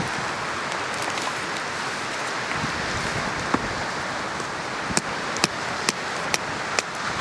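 Wood campfire burning in a Picogrill fire pit, crackling, with several sharp pops in the second half over a steady rushing background.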